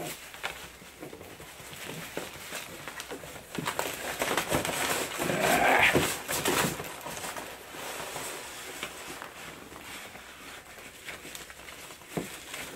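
Hands rummaging through styrofoam packing peanuts inside a cardboard box, rustling and scraping, loudest in the middle stretch.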